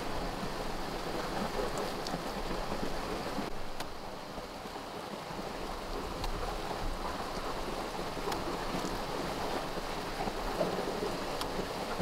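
Steady rushing of water, with a few faint sharp knocks as a machete cuts into a banana stalk.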